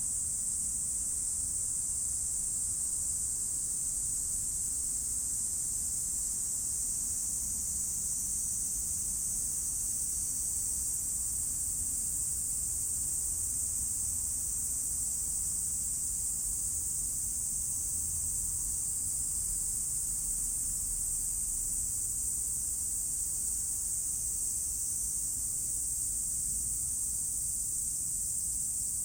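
Dense chorus of summer cicadas, a steady high-pitched hiss that does not change, over a faint low rumble.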